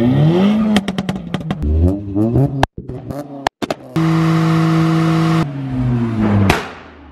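Modified cars' engines revving in a quick succession of cut clips: revs climb, then a run of sharp cracks, then an engine held at steady high revs while a car does a burnout, before the revs fall away.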